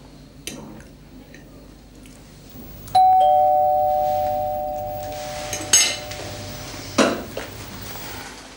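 A two-tone doorbell chime rings once: a higher note, then a lower one a moment later, both fading slowly together over about four seconds. A short scrape and a sharp knock follow as someone gets up from the table.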